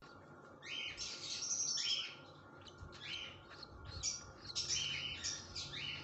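Nestling bird chicks cheeping: strings of short, high peeps in clusters, with brief pauses between them.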